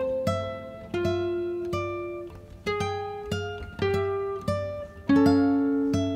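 Background music: a plucked acoustic guitar playing a slow tune of single notes and chords, each ringing and fading before the next.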